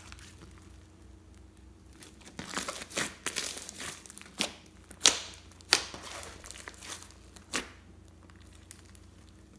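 Hands squeezing and pressing a large lump of thick slime mixed with small foam beads and glitter: crackling from about two seconds in, then several sharp pops, the loudest about five seconds in.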